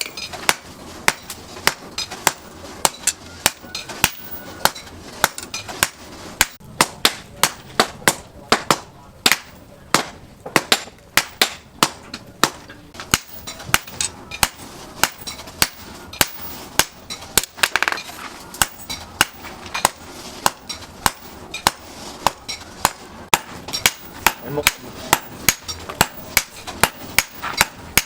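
Blacksmith's hand hammer beating steel on an anvil in a steady run of blows, two or three a second, each with a short metallic ring.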